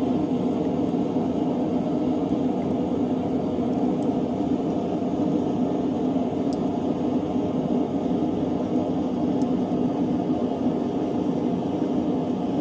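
Knifemaking forge running with a steady, even rushing noise while a blade heats for normalizing and hardening, with a few faint ticks.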